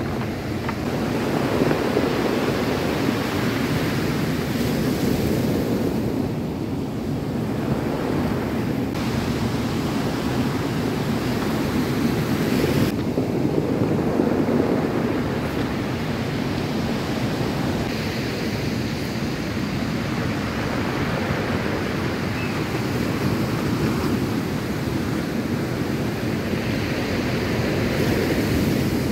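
Ocean surf breaking and washing up a cobble beach, with wind buffeting the microphone.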